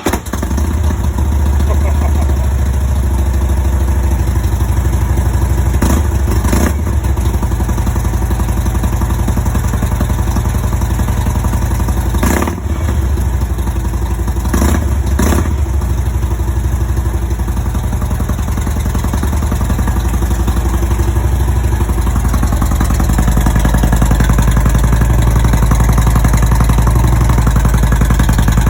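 Harley-Davidson Road Glide's Twin Cam 96 V-twin running at idle through new Cobra Neighbor Hater slip-on mufflers with their baffles in, just after its first start on the new pipes. A few sharp clicks sound over the idle, twice about six seconds in and again around twelve to fifteen seconds, and the idle grows slightly louder near the end.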